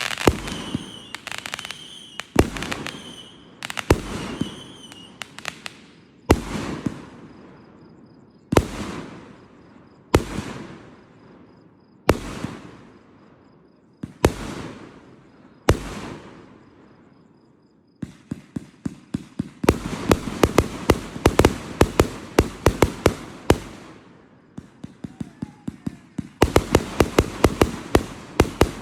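Fireworks display: aerial shells bursting with sharp bangs about every two seconds, each fading out in a long echoing tail, the first few over a whistling tone. Past the middle come two rapid volleys of many bangs, several a second.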